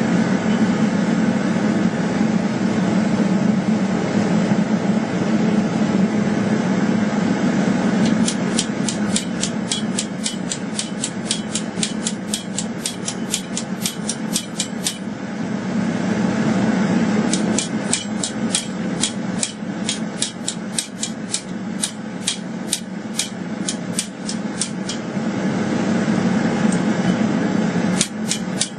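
Rapid hammer blows forging a steel blade, about four or five strikes a second, in two long runs a little more than a quarter of the way in and past the middle, with a third run starting near the end. A steady low drone sounds throughout.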